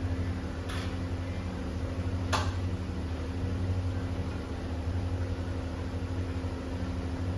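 Steady low machine hum, with a single sharp click about two and a half seconds in.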